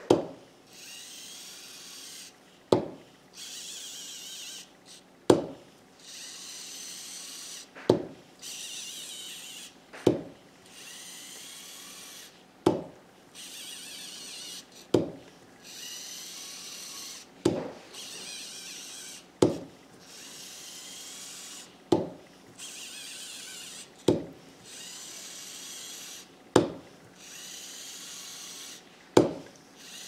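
Fingertip taps on an Anki Cozmo light cube, about one every two and a half seconds, each followed by a second or two of whirring from Cozmo's small tread motors as the robot drives forward or turns on command.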